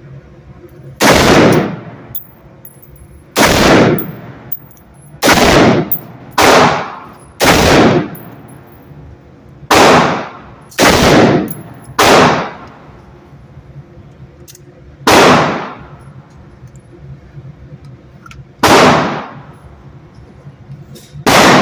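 Gunshots fired one at a time, about eleven in all, spaced unevenly one to three seconds apart, each followed by a short echo.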